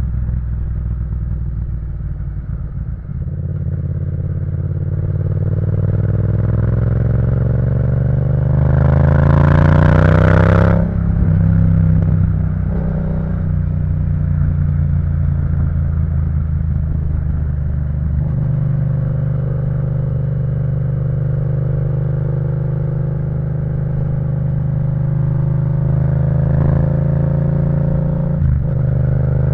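Yamaha MT-07 parallel-twin engine through an Akrapovič full exhaust system, heard while riding: it pulls hard with the pitch climbing steadily for several seconds, then drops sharply as the throttle closes, and settles into steady cruising. A couple of short clicks come near the end.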